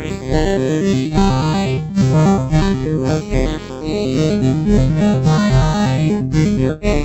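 Electronic synthesizer music: a quick run of short stepping notes.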